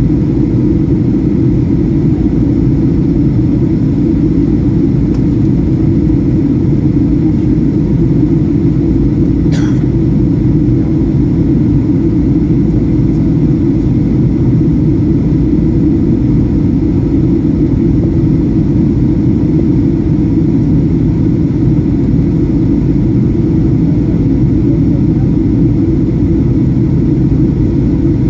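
Steady cabin noise of a Boeing 737-800 on its descent, heard from a window seat over the wing: the CFM56-7B jet engines and the airflow make a dense, even low rumble with a faint steady hum. A brief faint high squeak about ten seconds in.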